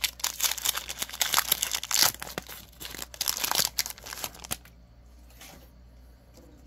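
A Pokémon booster pack's foil wrapper crinkling and tearing as it is ripped open and the cards are pulled out. The crackling rustle stops about four and a half seconds in.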